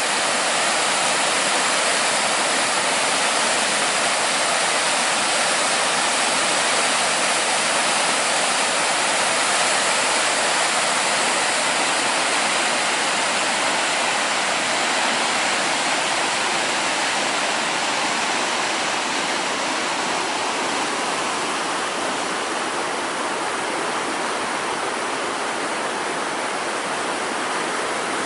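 River in flood, its swollen water rushing through the arches of a stone bridge: a steady rush of water that eases slightly in the last third.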